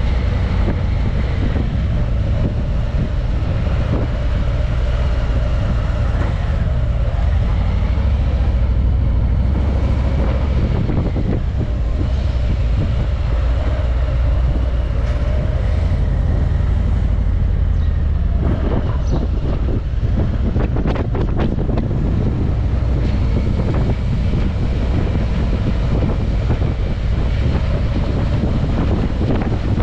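Car driving: a steady low rumble of engine and road noise with wind buffeting the microphone. Faint engine tones drift up and down, and a run of short knocks and rattles comes about two-thirds of the way through.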